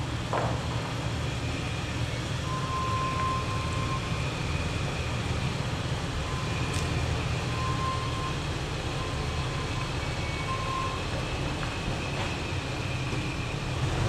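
Toyota Tacoma pickup's engine running at low speed as the truck creeps forward into the shop bay: a steady low hum.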